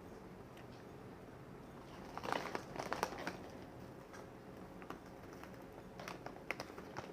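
Crinkling and crackling of a crisp snack bag in two short bursts, about two seconds in and again near the end.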